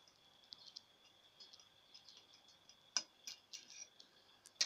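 Small permanent-magnet DC motor from a hand blender driving a glass-flask overhead stirrer at low voltage and low speed: a faint, steady high-pitched whine with irregular light ticks and a sharper click about three seconds in.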